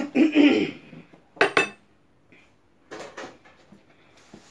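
Kitchen clatter: a jumble of noise at the start, then sharp ringing clinks about a second and a half in and a few more knocks around three seconds in.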